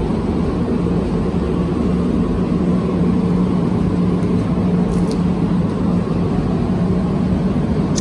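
Spray booth ventilation fans running: a steady rush of air with a constant low hum.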